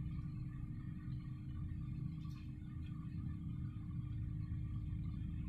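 Steady low rumble with a constant hum underneath, and a few faint scratches of a pen writing on paper about two seconds in.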